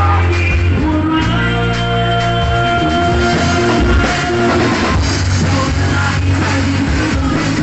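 Live rock band playing: electric guitars and a drum kit with a singer's voice in the mix.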